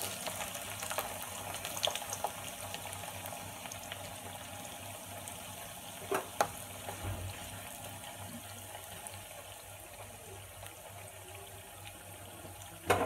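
Cubed bitter gourd sizzling and bubbling in hot oil in a non-stick pan, freshly added: a crackling hiss, strongest at first and slowly easing off. A couple of sharp clicks about six seconds in.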